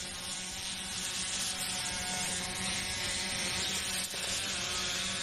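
Heavy machinery running steadily, a constant low hum with a hiss over it.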